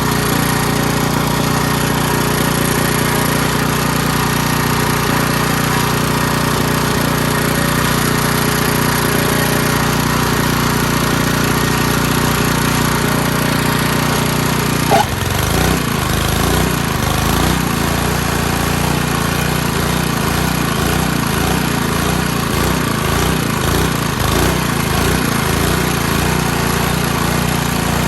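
Small gasoline engine running steadily at high speed. About halfway through there is a brief knock, and the note drops and turns rougher and uneven, pulsing.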